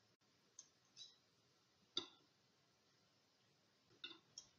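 Near silence broken by a few faint, light clinks of a utensil against a serving dish: two soft ones in the first second, a sharper one at two seconds, and two close together near the end.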